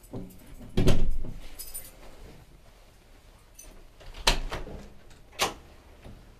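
A front door being unlocked and opened, with keys jangling: a loud knock about a second in, then two sharp clicks near the end.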